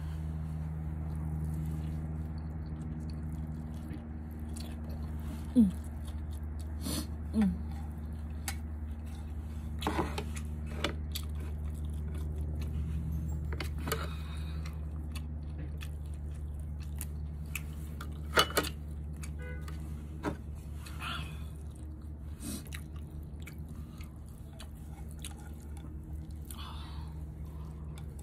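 Close-up mouth sounds of a person chewing a mouthful of rice and greens eaten by hand, with a few sharp clicks, the loudest about five and eighteen seconds in. A steady low hum runs underneath.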